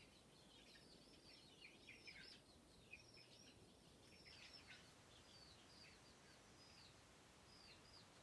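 Baby chicks peeping faintly: many short, high chirps that fall in pitch, crowded together for the first few seconds, then thinning out.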